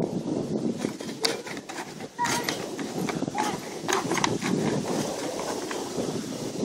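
A small child's feet landing and stepping on a trampoline mat, irregular soft thuds.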